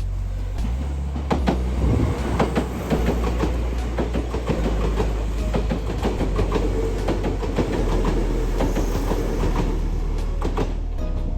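Kintetsu Minami-Osaka Line electric train passing, its wheels clacking over the rail joints in a long run of sharp clicks over a steady low rumble.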